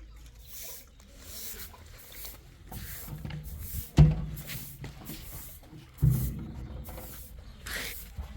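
A run of short scraping strokes, about one a second, with two heavy thumps about four and six seconds in.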